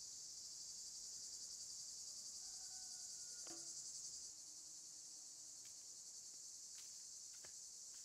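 Steady, high-pitched chorus of insects shrilling, with a few faint clicks.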